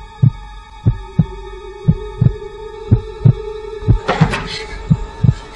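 A heartbeat sound effect: a double thump about once a second, set over a sustained drone of held tones. About four seconds in, a hissing, noisier layer joins it.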